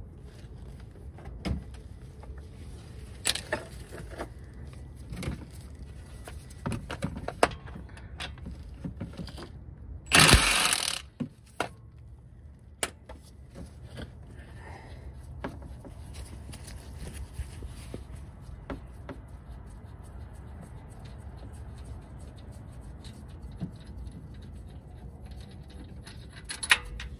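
Scattered clicks and knocks of metal tools and parts being handled during engine work, over a steady low hum, with one loud rushing burst lasting under a second about ten seconds in.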